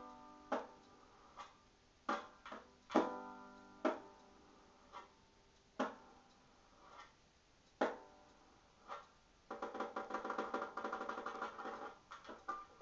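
Banjo played slowly with single chords and plucks a second or two apart, each ringing out, then a fast run of rapidly picked notes beginning about three quarters of the way through.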